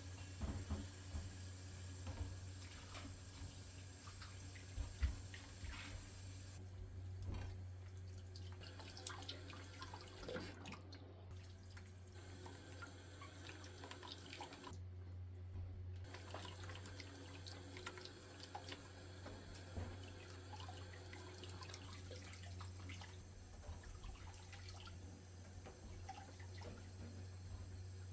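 Water splashing and dripping in a kitchen sink, with many small scattered ticks and knocks, over a steady low hum.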